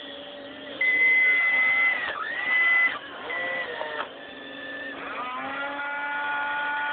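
Radio-controlled model excavator's electric motors whining in short runs, the pitch stepping and dipping as the controls are worked. About five seconds in, a whine rises and then holds steady.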